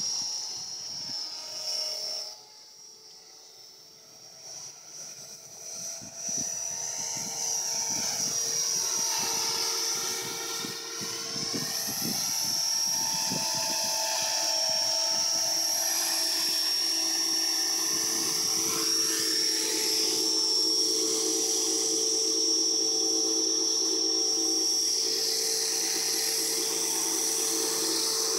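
Align T-Rex 450 electric RC helicopter, its motor and rotor giving a steady high whine in flight. It grows faint a couple of seconds in as the helicopter moves far off, its pitch dips and rises around ten seconds in, then it runs louder and steady as the helicopter comes close and sets down.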